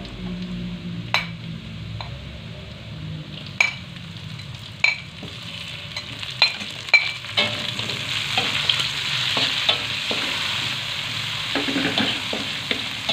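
Sliced shallots sizzling in oil in a wok while being sautéed until fragrant, a metal spatula stirring and scraping with sharp clinks against the pan. Roughly seven seconds in, chopped chillies and tomatoes are tipped in and the sizzle grows louder.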